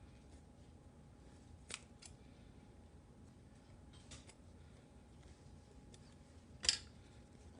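Scissors snipping through a soft foam squishy toy: a few short, sharp snips scattered through the quiet, the loudest near the end.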